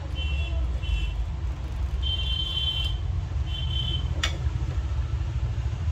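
Digital multimeter's continuity buzzer beeping four times in short, uneven bursts, the third the longest, as its probes touch the ECM connector pins; each beep marks a connected, grounded path. A sharp click about four seconds in, over a steady low hum.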